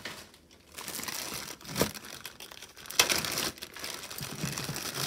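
Clear plastic bag crinkling as it is opened and handled, with two sharp clicks about a second apart from the metal watches and bracelets inside.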